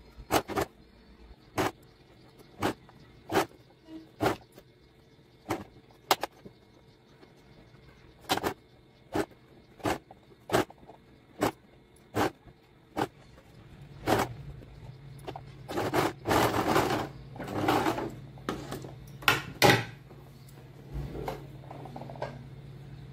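Sewing machine stitching in short spurts, about one a second, while gathers are set by hand under the presser foot. About halfway through a steady hum starts, and there are a few longer runs of stitching.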